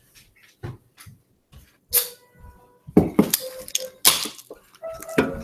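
Irregular sharp knocks and clatter, some followed by short ringing notes.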